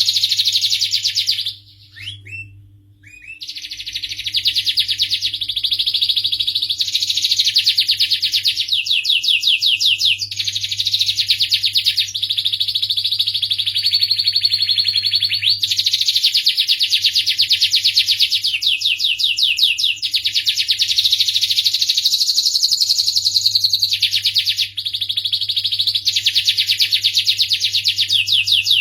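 Domestic canary singing a long, near-continuous song of fast trilled phrases, one running into the next, with a short pause about two seconds in.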